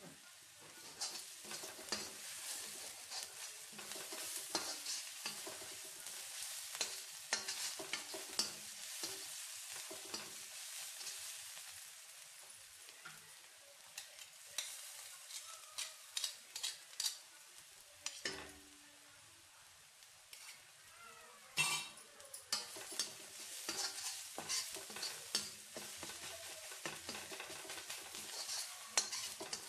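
Onion, garlic and ginger paste sizzling in hot oil in a wok, with a spatula scraping and tapping against the pan as it is stirred. The sizzle eases for a few seconds in the middle, and there is one sharper knock of the spatula about two-thirds through.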